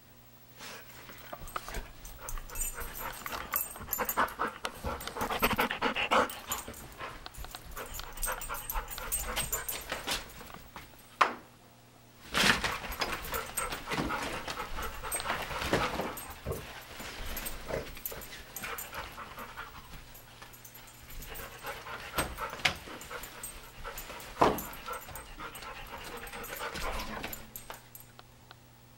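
Vertical window-blind slats clattering and rustling as an Airedale terrier pushes through them, with a few sharp clacks. The dog pants between bouts, and there is a short lull about midway.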